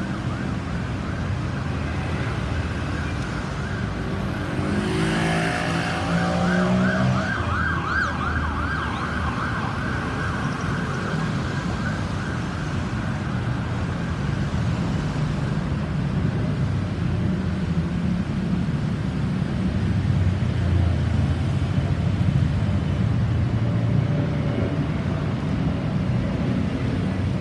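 Fast warbling siren of a rescue vehicle, loudest from about four to eight seconds in, over steady engine and tyre noise of busy road traffic.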